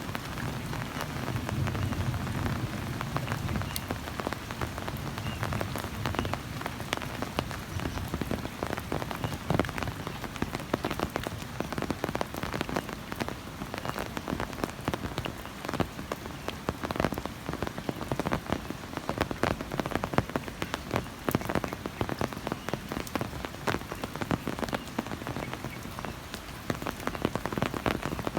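Heavy rain falling, with many sharp individual drop hits close to the microphone over a steady downpour. A low rumble sits under it in the first few seconds.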